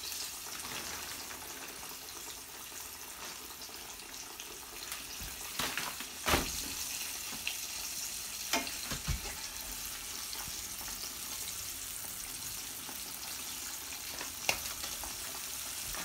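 Tilapia fillets frying in hot oil in a cast iron skillet: a steady sizzle, with a few sharp pops and clicks, the loudest about six seconds in.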